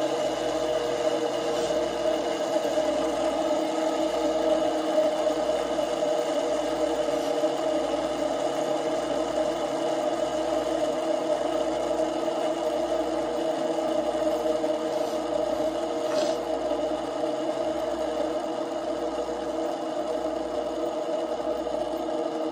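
Two fidget spinners spinning on a tabletop, their bearings giving a steady whirring rattle that eases slightly as they slow.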